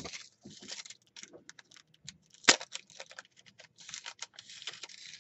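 Rapid small clicks and crinkles of a card-and-plastic fishing-tackle package and its small metal snap swivels being handled, with one sharper click about two and a half seconds in.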